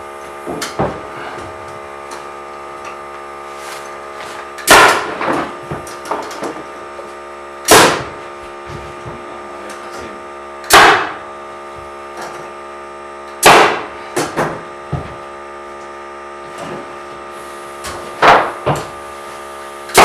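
Pneumatic nail gun firing nails into a loft floor: five sharp shots a few seconds apart, each followed by a few light knocks, over the steady hum of a running air compressor.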